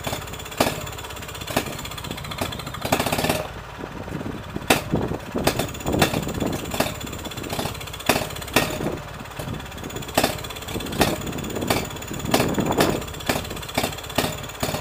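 Small vintage single-cylinder stationary engine running with a fast steady chug, with sharp cracks at uneven intervals of about one a second.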